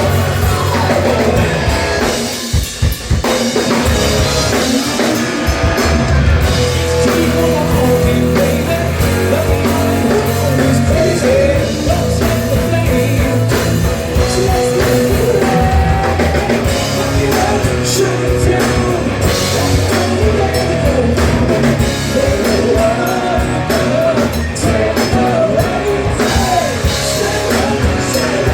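Live rock band playing loud, with a full drum kit, heard from the crowd. The band stops for a moment about two and a half seconds in, then comes straight back in.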